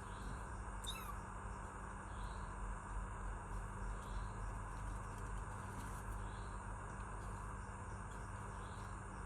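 Steady chirping of crickets, with soft pulses repeating every second or two. About a second in comes one brief, high kitten mew that falls in pitch.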